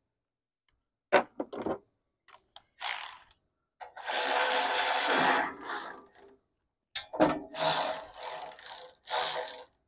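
Cordless electric ratchet spinning the 14 mm bolt off an exhaust head pipe: a click about a second in, one longer run of the motor near the middle, then several short bursts near the end.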